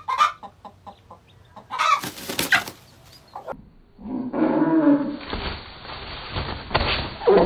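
Broody hen clucking and squawking in alarm at a snake striking at her on the nest, with a burst of rustling and flapping about two seconds in. From about four seconds in the sound turns muffled and noisy.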